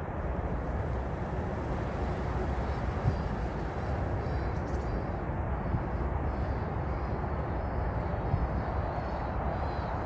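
A steady low outdoor rumble with no clear source. From about four seconds in it carries faint, high twittering from the starling flock, coming in short runs.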